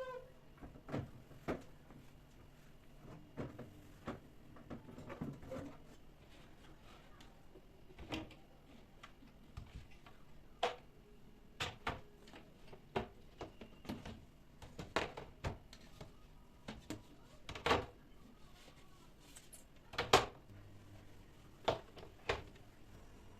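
Irregular clicks, knocks and clacks of household items being handled and set down, with door- or drawer-like bumps; the loudest is a sharp double knock near the end.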